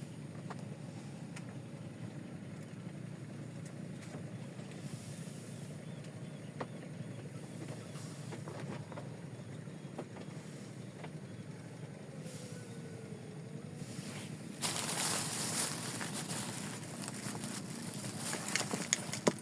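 A small boat's engine runs with a steady low drone. About 15 seconds in, louder rustling and a few sharp clicks come in over it.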